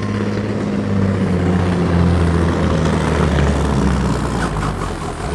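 Diesel engine of a truck-pulling competition truck running flat out under heavy load as it drags the weight sled: a steady low drone that swells about two seconds in and eases near the end. The truck seems to be labouring in too high a gear.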